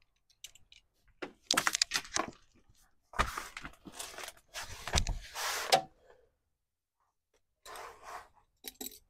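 Rustling and scraping of a person crawling under a truck on a sheet of cardboard, in several spells with quiet gaps, with some handling noise from tools.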